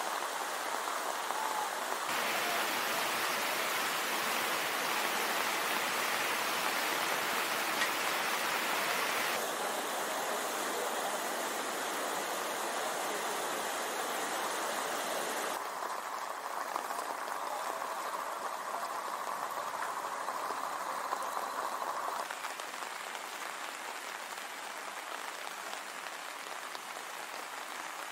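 Steady rushing noise of a muddy floodwater torrent, with rain falling. The noise shifts abruptly in tone and level three or four times.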